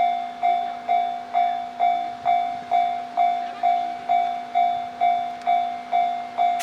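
Japanese railroad crossing warning bell ringing in its steady "kan-kan" rhythm, about two strikes a second, each a clear ding that fades quickly: the crossing is closed for an approaching train.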